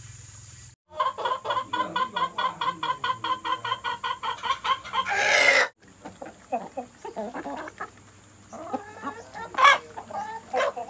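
Chickens clucking: a fast, even run of short clucks at several a second, then a louder, harsher call about five seconds in. After a sudden break, scattered clucks and calls.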